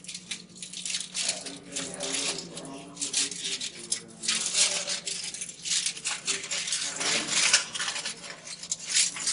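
Aluminium foil crinkling and rustling in irregular crackles as it is peeled off a collector drum and crumpled by hand, over a steady low hum.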